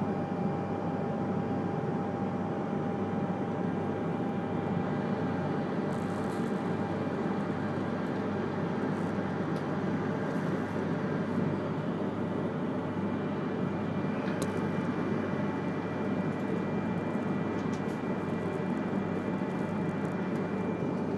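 Cabin noise of an E3-series shinkansen train rolling slowly into a station platform: a steady low rumble with thin, steady whining tones over it and a few short clicks.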